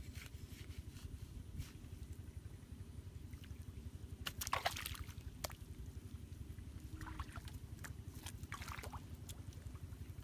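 Wind rumbling on the microphone, with short wet squelches and crackles of mud being packed by hand around PVC pipes, the loudest about halfway through and another near the end.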